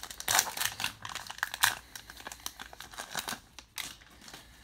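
A baseball card pack wrapper being torn open and crinkled in the hands. It makes a dense run of sharp crackles that thins out near the end.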